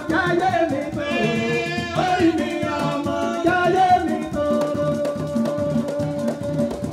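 Yoruba traditional folk music from a cultural troupe: singing over hand drums and rattling percussion, with a voice holding one long note through the second half.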